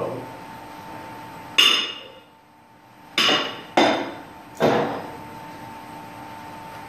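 Metal-on-metal clanks from tools and steel pipe fittings being worked on: one sharp strike, then three more in quick succession, each ringing briefly, over a steady hum.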